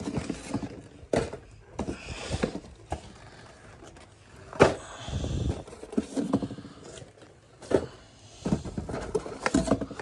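Boxes being handled and shifted about: irregular knocks, thuds and rustling of cardboard, with one sharper knock about halfway through.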